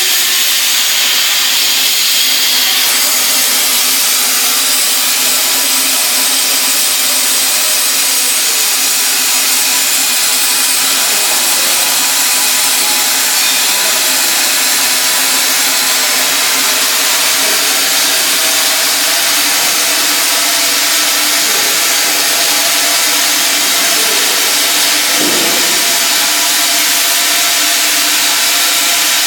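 Spiral air duct forming machine running continuously: a loud, steady mechanical noise with constant tones underneath.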